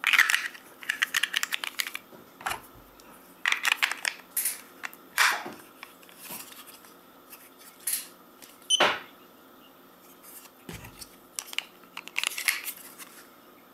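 AA batteries being pushed into the plastic battery compartment of an Efergy Elite wireless display against its spring contacts, with scattered clicks and plastic rattles in short bursts. Near the end, the plastic battery cover clicks back into place.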